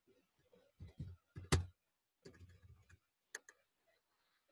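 A few faint, sharp clicks at a computer desk, the loudest about one and a half seconds in and a thinner one near the end, with low muffled sounds between them.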